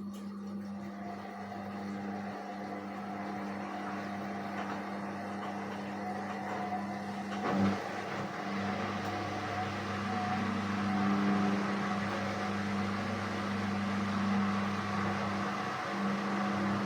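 Indesit WISN 101 front-loading washing machine running its rinse cycle: a steady hum with a single knock about halfway through, after which a noisier swishing wash grows louder.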